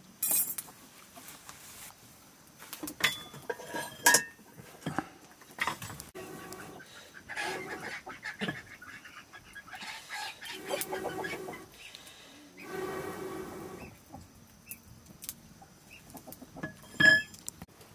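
Wood fire crackling under a pot on an iron trivet, with sharp pops and knocks of sticks at intervals. A few short animal calls come in the middle.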